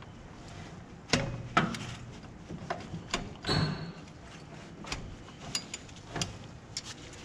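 Irregular metallic clicks and clunks, about seven sharp knocks spread over several seconds, from a serpentine belt tool and the belt tensioner as the belt is levered onto the pulleys of a 12V Cummins diesel with the engine off.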